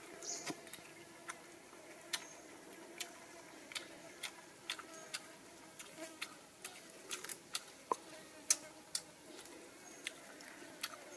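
Close-up eating sounds: irregular sharp clicks and smacks as grilled fish is chewed and picked off its bones and lettuce leaves are handled, over a faint steady background drone.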